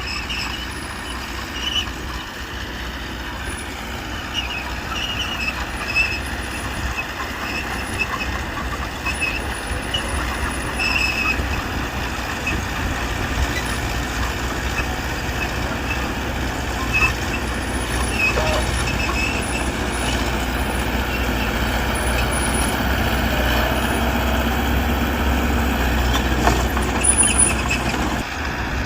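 Diesel engines of a small crawler bulldozer and a dump truck working: a steady low rumble with scattered short squeaks and clanks, getting gradually louder.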